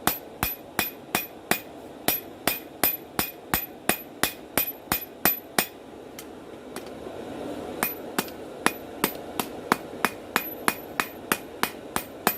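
Cross-pein hammer striking hot steel on an anvil, drawing out a knife blade at a steady pace of about three ringing blows a second. The hammering pauses for about two seconds near the middle, then resumes.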